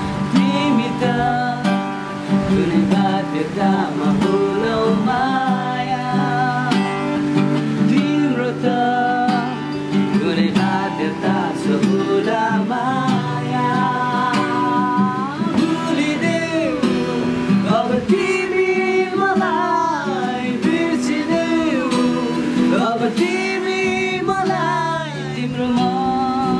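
A man singing a song to strummed acoustic guitar.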